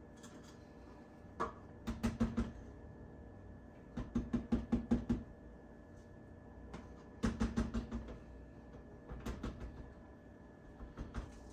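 A utensil knocking quickly against a metal mixing bowl in about five short bursts of rapid strokes, as cake batter is stirred by hand.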